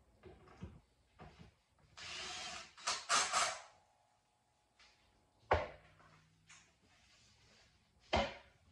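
Flat-pack side table's particleboard panel handled on its metal frame: a spell of noisy scraping about two seconds in, then two sharp knocks, one mid-way and one near the end.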